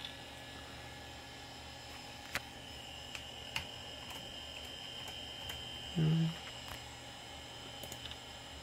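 Steady low hum of a running desktop computer's fan, with a few sharp mouse clicks. A brief low hum-like sound comes about six seconds in.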